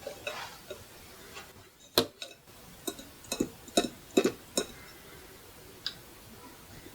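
Fingers tapping on a wall clock's plastic and metal casing: one sharp tap about two seconds in, then a quick, irregular run of taps, and a last single tap near the end.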